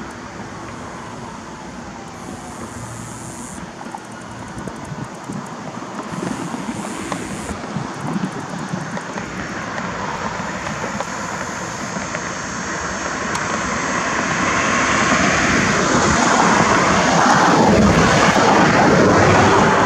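Vehicle noise passing close by, a rushing sound that swells over the last several seconds.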